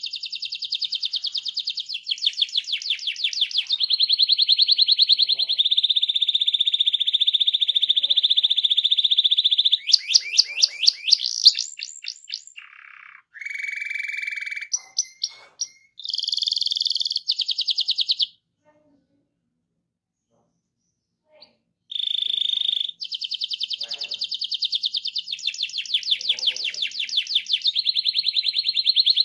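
Domestic canary singing in long rolling trills, fast runs of repeated notes in several phrases, with a silent pause of about three seconds a little past the middle.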